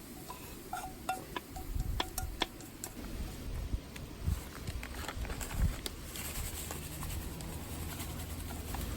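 A scatter of light clicks, taps and clinks, some with a short ringing note, as small hard objects are handled, over a low steady rumble. The clinks thin out after about six seconds.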